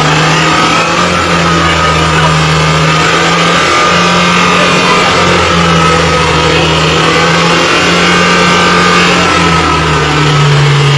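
Mitsubishi Colt Diesel truck's diesel engine in runaway, racing on its own at a high, nearly constant speed. Loud and steady throughout, with only slight shifts in pitch.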